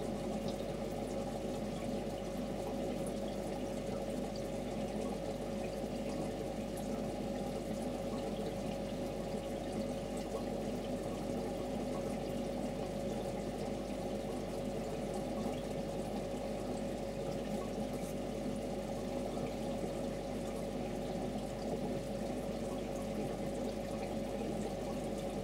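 Aquarium water trickling steadily, with a steady hum underneath.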